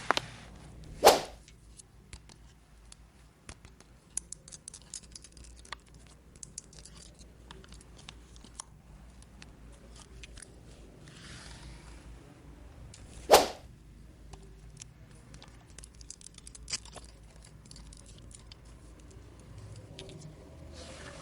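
Hands handling small plastic toy pieces and packaging, with scattered light clicks and taps, and two short, sharp swishes like film or tape being pulled, one about a second in and another about twelve seconds later.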